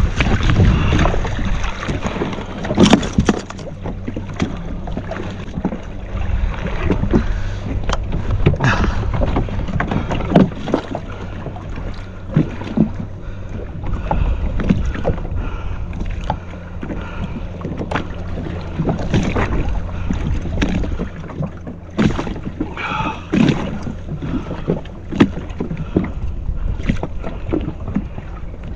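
Yamaha SHO jet ski's engine running steadily on the water, a low even hum, with irregular sharp knocks and splashes of the hull on the chop.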